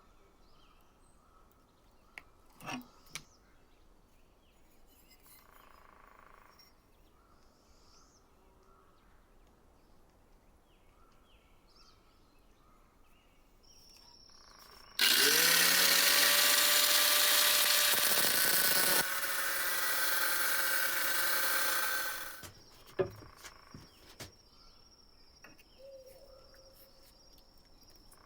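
An electric power tool spins up with a rising whine, runs for about seven seconds, and stops. A few knocks and clicks of handling come before and after.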